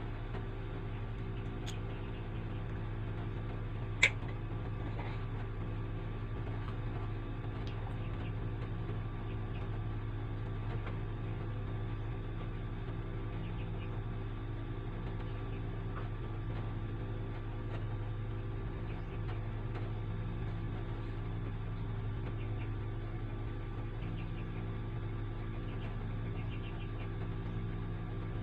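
Steady low mechanical hum at an even level, with a single sharp click about four seconds in.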